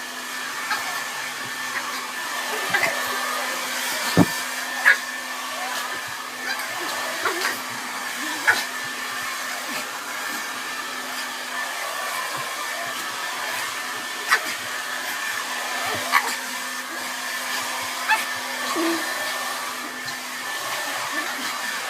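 Hair dryer running steadily with a continuous blowing hum, broken by a handful of scattered sharp clicks and knocks.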